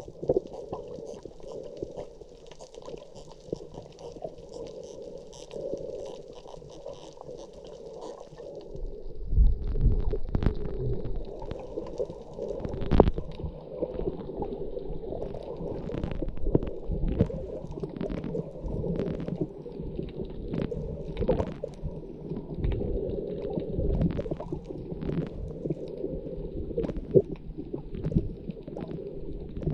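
Muffled underwater sound heard through a camera's waterproof housing: water gurgling and rumbling. From about nine seconds in the deep rumble grows stronger, and scattered sharp clicks and knocks come in.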